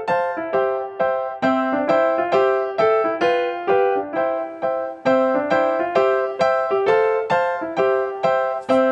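Light background music on an electric piano, notes struck in a steady rhythm about two a second. A brief hiss near the end.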